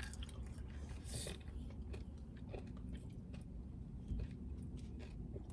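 Chewing and biting on frozen yogurt with hard, frozen gummy-worm toppings: a string of small crunchy clicks with no steady rhythm.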